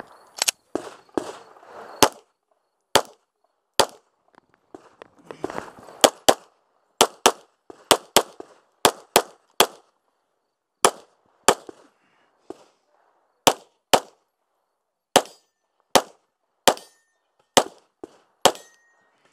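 Glock 17 9mm pistol fired in rapid strings of many shots, mostly quick pairs, with short pauses between groups.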